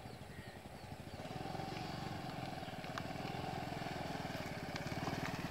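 Yamaha RayZR Street Rally scooter's 125 cc air-cooled, fuel-injected Blue Core engine running at low revs with a steady low pulsing. It grows a little louder about a second in.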